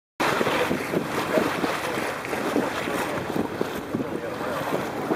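Wind buffeting the microphone over water rushing along the hull of a sailboat under way. It is a steady, fairly loud rush that cuts in sharply just after the start and cuts off abruptly at the end.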